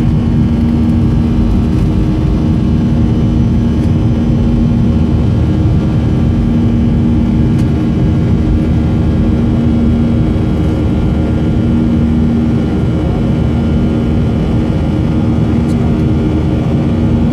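Boeing 737-300 cabin noise during the climb after takeoff: the CFM56 jet engines and rushing air make a loud, steady drone with a low hum held under it.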